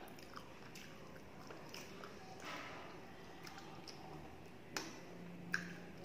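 Close-up chewing of a mouthful of rice and crisp fried food, with scattered small clicks and squelches as fingers mix rice on a steel plate; two sharper clicks near the end.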